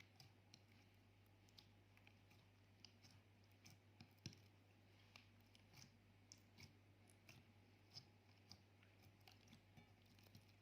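Faint, irregular clicks and small pops of slime being squeezed and stretched by hand, over a steady low hum.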